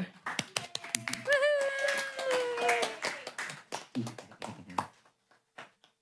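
A small group applauding, the clapping thinning out and stopping about five seconds in. About a second in, a voice calls out one long held note that sinks slightly in pitch.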